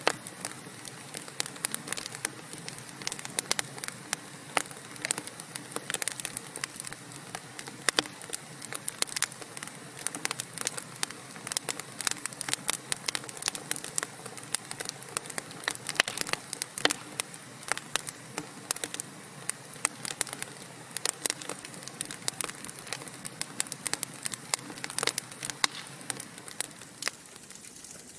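Wood fire crackling: irregular sharp pops and snaps, several a second, over a soft steady hiss.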